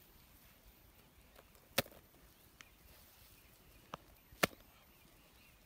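Hands patting and pressing loose soil down over a filled hole. There are two sharp slaps a little under three seconds apart, with a couple of fainter taps between them.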